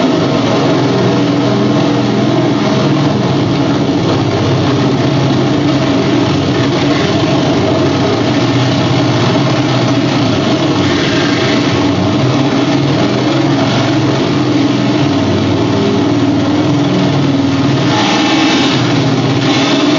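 Harsh amplified noise from calculators being pushed into spinning electric fans: a loud, steady, dense rumble and rattle, with a brighter hiss coming in near the end.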